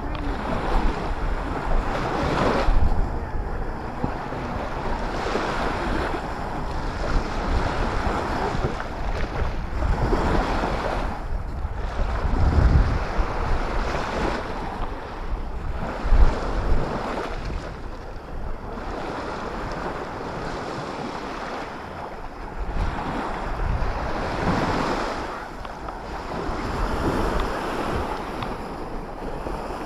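Sea waves breaking and washing up the shore, swelling and fading every few seconds, with wind buffeting the microphone in low rumbling gusts.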